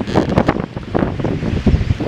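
Wind buffeting the microphone in uneven, rumbling gusts.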